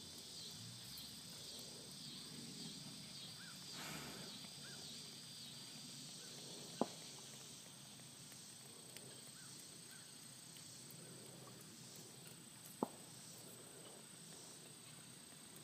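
Faint outdoor ambience: a steady high-pitched hum, with a rhythmic high chirping in the first few seconds and a few soft chirps. Two sharp clicks stand out, one about seven seconds in and another about six seconds later.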